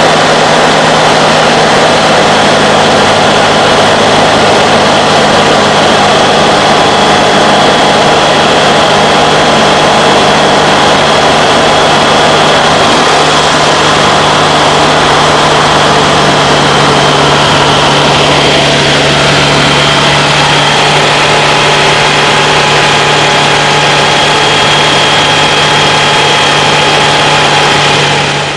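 Kitfox IV light aircraft's engine and propeller running steadily in cruise flight, a loud even drone with wind noise, heard from inside the cabin. It fades down at the very end.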